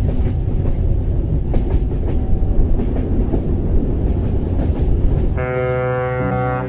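Train running on rails: a loud rumble with rapid clicks and clacks from the wheels over the track. About five seconds in it gives way to a held chord of steady pitched tones.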